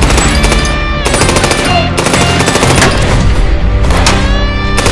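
Rapid automatic rifle fire in long bursts, with a short break about two seconds in, mixed over loud music.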